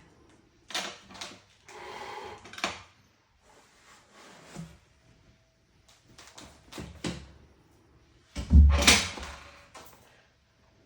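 Handling noises: several short knocks and rustles with pauses between, the loudest a heavy thump about eight and a half seconds in.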